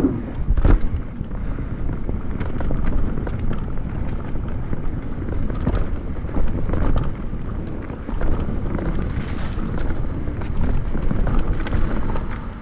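Mountain bike speeding down a dirt trail: wind rushing over the microphone and tyres rolling on dirt, with the bike rattling and knocking over bumps, a sharp knock just under a second in.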